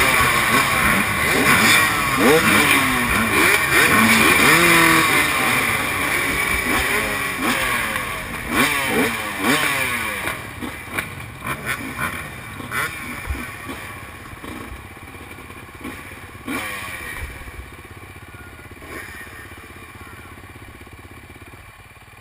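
Several dirt bike engines revving at once, their pitches rising and falling over one another. The sound gradually fades away over the second half.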